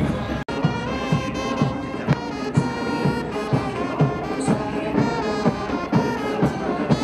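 Military band playing a march: brass over a steady bass drum beat, about two beats a second, with a brief drop-out about half a second in.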